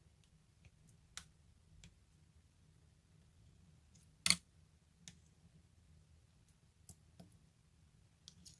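Gold pearl slime being handled, giving scattered soft clicks and pops, with one louder click about four seconds in.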